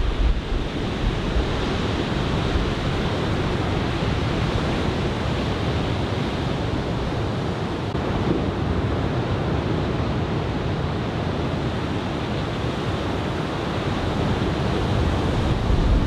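Ocean surf breaking and washing steadily on the shore, with wind buffeting the microphone, most strongly near the end.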